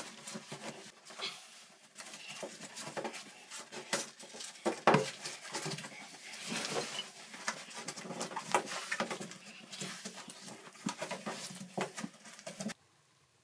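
Gloved hands handling and seating a foam gasket and plastic overflow parts against a bathtub's overflow opening: irregular rubbing with soft taps and clicks, stopping abruptly near the end.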